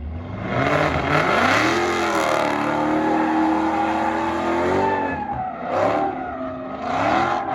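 A car engine revving, its pitch rising, holding, dipping and rising again.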